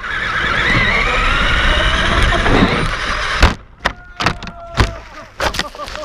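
Radio-controlled truck heard from its own onboard camera. Its motor runs with a whine that rises in pitch under a dense rush of ground noise as it speeds over rough ground. About three and a half seconds in, a run of hard knocks and thuds follows as the truck crashes and tumbles over.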